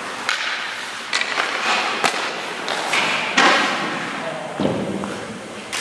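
A run of sharp knocks from hockey sticks and a puck, mixed with the hiss of skate blades scraping the ice as a goaltender moves and drops into a butterfly.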